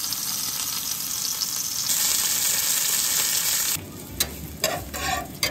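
Stuffed chicken breasts sizzling steadily in a hot cast-iron skillet. A little under four seconds in, it gives way to diced onion frying more quietly in oil, with a utensil clicking and scraping against the pan as it is stirred.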